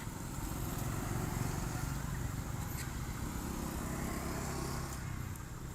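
A motor vehicle's engine running, a low hum that grows louder about a second in and fades near the end.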